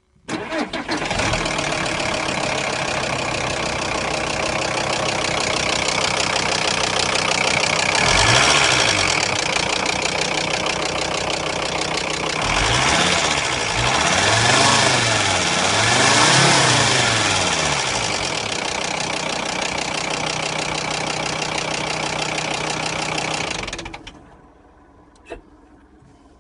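Volkswagen Crafter van engine starting up and running with a knocking racket of unknown cause. It is revved up and back down four times around the middle, then shut off near the end.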